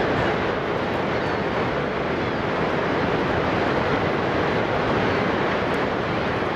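Steady, unbroken rush of the Horseshoe Falls at Niagara Falls: a huge volume of water pouring over the brink.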